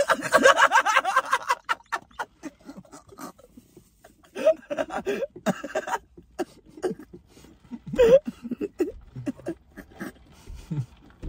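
Men laughing and chuckling in short bursts, with a stronger burst of laughter at the start, and many short clicks and mouth noises in between.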